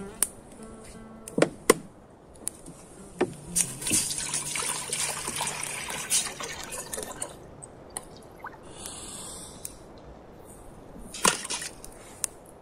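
Water poured from a large plastic bottle into a stainless steel pot, splashing steadily for about four seconds in the middle. A few sharp knocks and clicks come before and after the pour.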